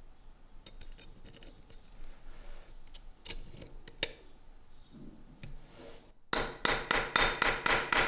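Light metallic clicks and clinks of small metal parts being handled, then, about six seconds in, a quick run of loud, evenly spaced knocks.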